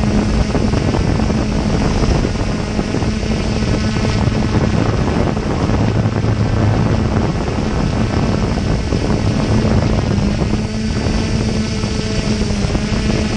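Aton drone's motors and propellers running steadily in flight, heard from the GoPro Session mounted on the drone: a constant low hum under heavy wind and prop-wash rush on the microphone.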